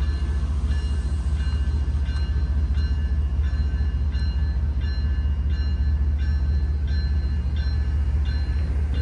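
Railroad grade-crossing warning bell ringing in an even rhythm, about three strikes every two seconds: the crossing is activated for an approaching train. A steady low rumble runs underneath.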